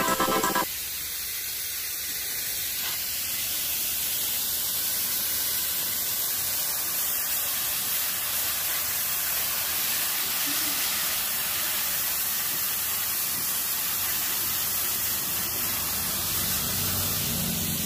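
Background music cuts off abruptly less than a second in. Then a fine jet of water from a hose nozzle sprays against the fins of a window-type air conditioner's coil, a steady hiss.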